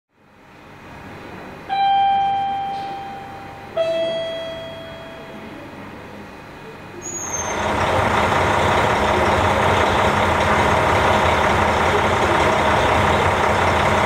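A two-note descending chime, each note ringing out and fading over about two seconds. From about seven seconds in, the steady running of a KiHa 40 diesel railcar's engine idling at the platform.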